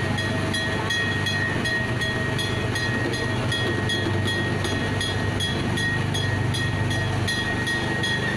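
Small tourist train running along its track, heard from on board: a steady low motor hum and a high whine, with a regular rapid ticking of about three clicks a second. The hum eases a little near the end.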